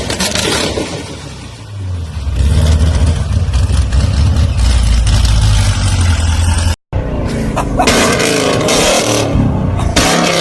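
Sports-car exhausts: first a deep, steady exhaust drone. After a sudden cut about two thirds of the way in, a car is revved in several sharp blips.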